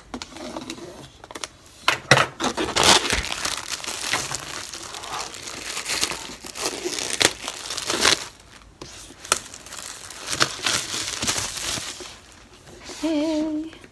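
Plastic shrink-wrap being peeled and pulled off a laptop box, an irregular crinkling and tearing rustle that comes and goes for several seconds.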